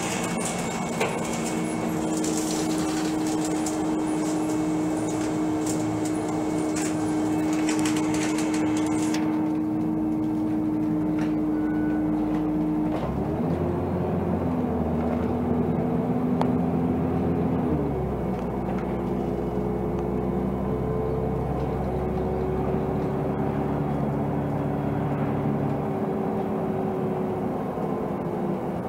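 Volvo 7000A CNG articulated bus driving, heard from inside the passenger cabin: a steady engine and drivetrain drone whose pitch shifts about halfway through and again a few seconds later, with a rattle of interior fittings during roughly the first nine seconds.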